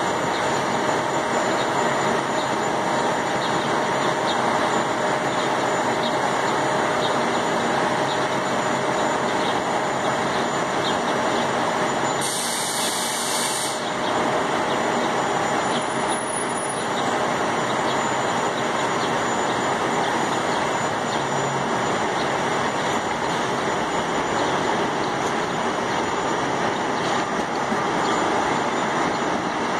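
Bombardier Flexity Outlook low-floor electric streetcars: a steady electric hum and whir, with a few thin held tones, as one streetcar stands at the platform and another pulls out along the track.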